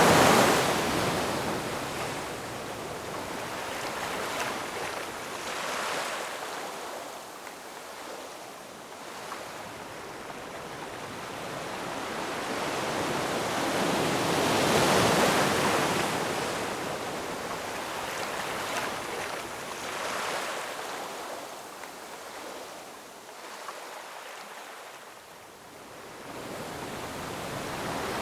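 Ocean waves breaking and washing over a rocky shore, a hissing surf that swells and ebbs in surges, with the loudest waves at the start and about halfway through.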